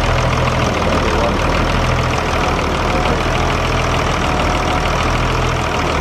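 Fiat 1000 DT Super tractor's six-cylinder diesel engine running steadily close up, with a fast, even diesel clatter.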